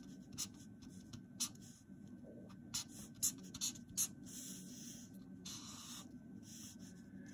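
Felt-tip marker drawing on paper: faint short scratchy strokes and ticks, with a few longer drawn strokes after about three seconds in.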